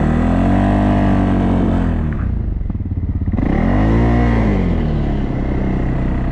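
CFMoto off-road vehicle's engine revving up and easing off twice, dropping to a low rattly idle between the two revs, then running steadily.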